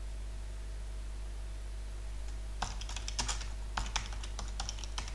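Typing on a computer keyboard: a quick run of about a dozen keystrokes begins about two and a half seconds in, over a steady low hum.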